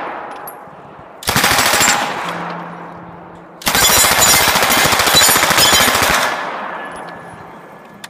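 Lage Mfg MAX-41A Pulse Rifle firing in rapid automatic bursts: a short burst about a second in, then a longer burst of about two and a half seconds from near the middle, each trailing off in echo.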